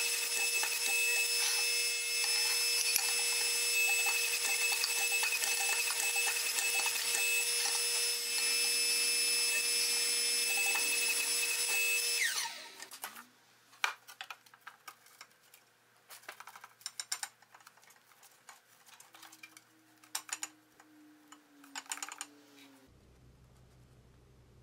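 Press used to bend a flat steel bar over a box die, its motor running with a steady whine that is switched off about twelve seconds in and winds down. Scattered light clanks of the steel and tooling follow.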